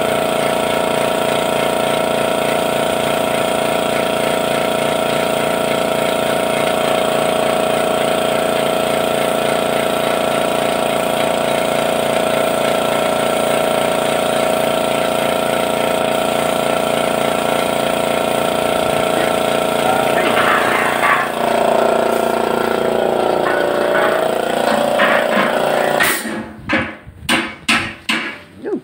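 Spray-painting with an air-fed gravity spray gun: a compressor motor running steadily under the hiss of the gun spraying paint. Near the end the steady running stops and short bursts follow, about two a second.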